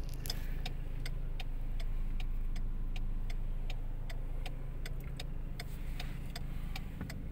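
A car's turn-signal indicator ticking evenly, about three ticks a second, over the low steady hum of the engine heard inside the cabin.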